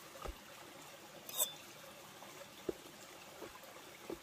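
Steady trickle of a small stream, with a few short knocks and taps from dough being handled and cut with a knife on a wooden board; one sharper tap comes about a second and a half in.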